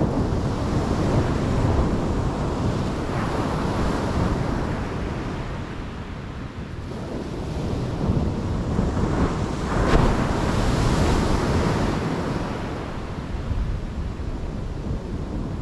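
Sea surf breaking and washing up a sandy beach, with wind buffeting the microphone. The wash swells and ebbs, loudest about two-thirds of the way in.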